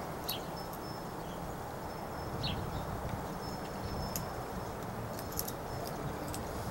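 Crow pecking at food in a dish, its beak giving a few light, separate taps and clicks over a steady background hum.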